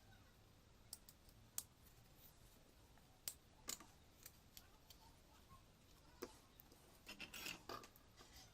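Faint, scattered clicks and small taps of a capacitor being handled and seated on a power-supply circuit board, with a short run of rustling clicks near the end.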